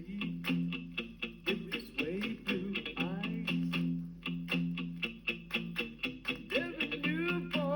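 Guitar-led rock music, with no vocal in this stretch, played from a vinyl record on a 1960s Dansette Conquest Auto record player, just refurbished with a new stylus and belts. It has a steady beat and sliding guitar notes, with very little bass.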